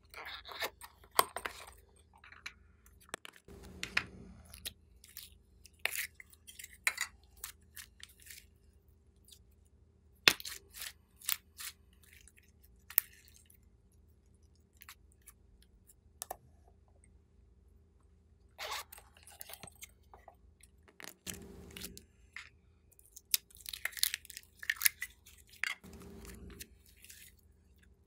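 Hands handling slime and a plastic bunny-shaped piping-bag holder: irregular sharp clicks, crackles and scratchy rustles, with a few dull thumps.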